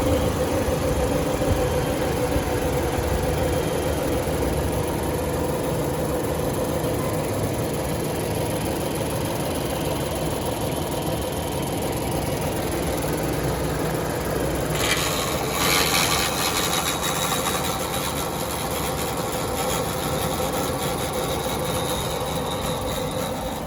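2018 Ford Escape SUV's engine idling steadily, with a brief burst of hiss about fifteen seconds in.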